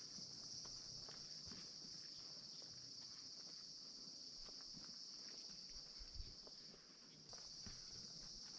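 Faint, steady, high-pitched drone of insects, with a few faint ticks and knocks; the drone thins out briefly about seven seconds in.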